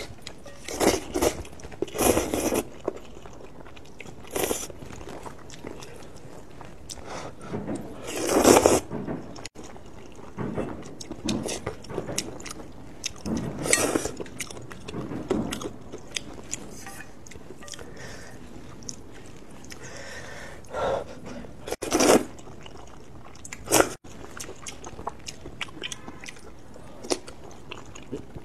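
Close-miked eating of sweet potato glass noodles in hot and sour soup: several loud wet slurps as noodles are sucked up, the longest about a third of the way in, with chewing and small mouth clicks between them.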